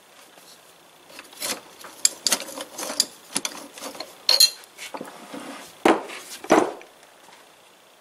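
Metal lathe parts being handled on a bench while a pin is worked out of them: irregular clinks, scrapes and taps, with two loud knocks near the end.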